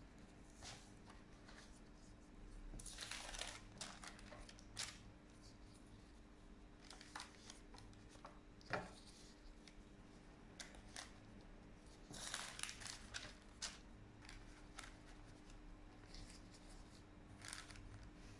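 Faint rustling and light clicks as gloved hands lay rolled lumpia wrappers into a paper-lined clear plastic container, over a steady low hum.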